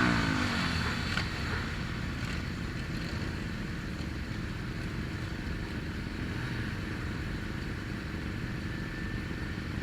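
125cc motorcycle engine settling from a rev, its pitch falling, to a steady idle that runs on evenly.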